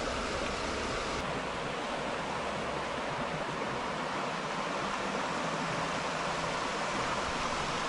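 Steady rushing of a river flowing over stones.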